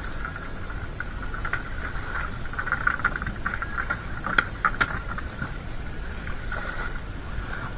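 Fish being sorted by hand on a plastic tarp and into a plastic basket: crackling rustle and light knocks, with two sharper clicks about four and a half seconds in, over a steady low rumble.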